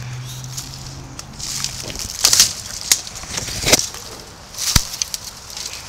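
Footsteps crunching and crackling through dry fallen leaves and brush, several uneven steps about a second apart, with a sharp knock near the end. A low steady hum is there for the first second and a half, then stops.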